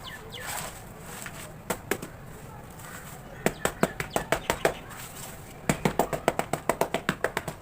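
Hardened cement cakes being tapped: a few single sharp taps, then two quick runs of taps, the second longer and faster, about eight a second.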